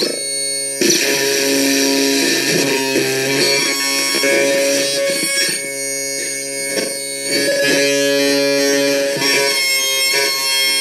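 The Phantom Ion, a DIY touch-controlled noise synthesizer built around 555 timers and a UA709, played by a hand on its touch pads. It gives layered droning tones that jump to new pitches every second or two, over a hissy noise.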